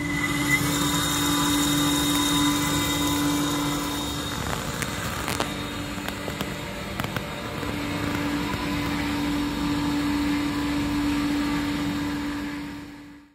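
A wire EDM spark-eroding machine running as it cuts thin brass sheet: a steady motor hum over hissing and scattered crackling ticks. The hum drops out for a few seconds in the middle and comes back, then the whole sound fades out at the end.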